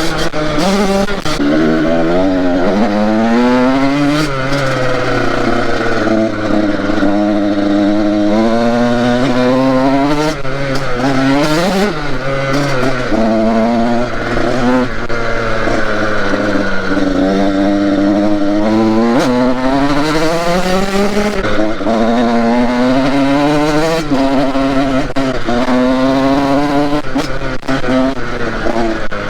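2012 KTM SX 85's 85 cc two-stroke single at full throttle while riding, revving up again and again, each run climbing in pitch and then dropping back as it shifts. It revs freely to high rpm on a fresh spark plug, which cured the fault: a burnt, oily plug that had kept it from reaching high revs.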